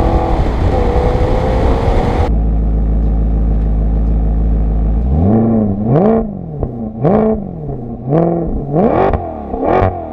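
Maserati GranTurismo Sport's 4.7-litre V8 accelerating with rising revs. After a sudden cut, it idles steadily, then is blipped several times, about once a second, the revs shooting up and falling straight back each time.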